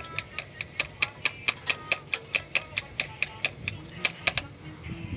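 Hand priming pump on the Mitsubishi Canter diesel's injection pump clicking with each quick stroke of the plunger, about five clicks a second, stopping about four seconds in. It is being pumped to push diesel up through the fuel filters and bleed out the air after a filter change.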